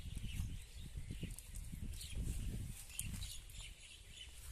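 Nylon cast net being gathered up by hand on grass: rustling of the mesh and scattered light clicks of its edge weights, over an irregular low rumble.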